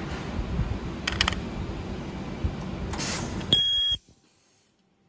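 Ultrasonic plastic welder firing one weld cycle: a loud, steady, high-pitched whine lasting about half a second, starting about three and a half seconds in. Before it there is a noisy hiss with a few clicks. The sound then cuts off to near silence.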